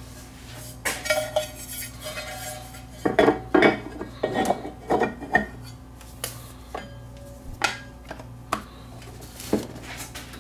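Metal platter of a Technics SL5200 direct-drive turntable being set onto its spindle by hand and its rubber mat laid on, with an irregular string of metallic clinks and knocks, busiest in the middle.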